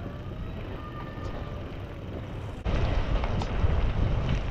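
Wind rumbling and buffeting on a camera microphone. It jumps suddenly louder about two and a half seconds in.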